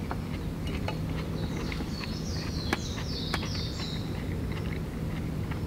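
Forest ambience: a bird sings a short high, stepped phrase in the middle, with a few light clicks and a steady low hum underneath.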